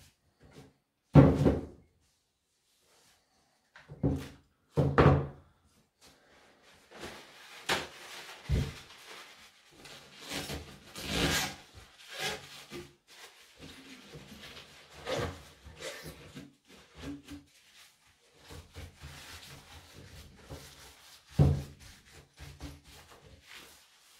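Chainsaw being wiped down with a rag and shifted about on a plastic-covered workbench: rubbing and rustling, broken by several knocks and thuds, the loudest about a second in and again near the end.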